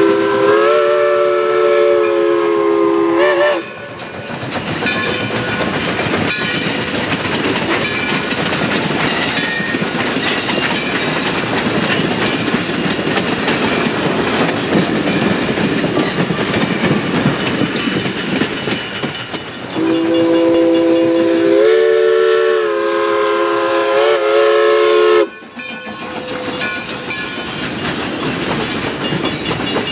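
Steam locomotive chime whistle sounding two long blasts of several notes together, typical of a grade-crossing signal. The first ends about three and a half seconds in; the second starts about twenty seconds in and lasts some five seconds. Between and after the blasts, the passenger coaches rumble past, wheels clicking over the rail joints.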